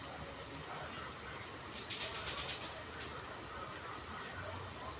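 Garlic and ginger strips sizzling in hot oil in a metal pot: a steady hiss with a few small crackles.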